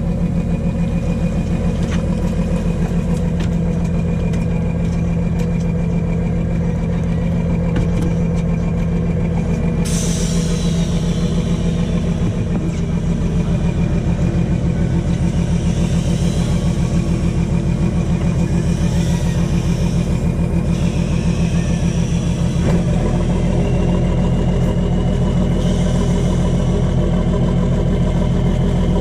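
Fishing boat's engine running steadily with a throbbing low drone. A hiss joins it about a third of the way in, and the engine's note changes near the two-thirds mark.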